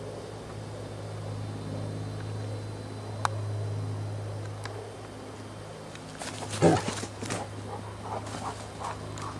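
A dog barking in a quick flurry of loud barks starting about six seconds in, the first the loudest, set off by a hawk swooping low over it.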